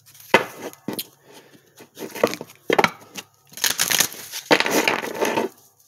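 Tarot cards shuffled by hand: irregular bursts of papery rustling and riffling, some brief, two longer ones in the second half.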